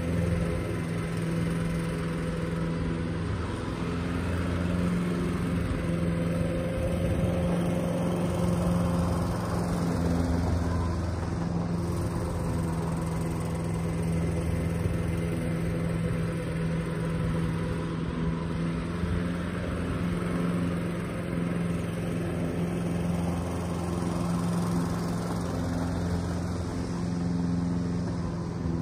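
Toro ProStripe 560 walk-behind rotary mower running steadily under load as it cuts Kentucky bluegrass very short, its engine a constant even hum.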